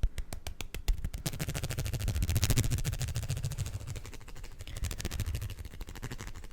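Hands making fast sounds close to the microphone: a quick regular tapping, about seven taps a second, for the first second, then a denser, faster rubbing and scratching that eases off toward the end.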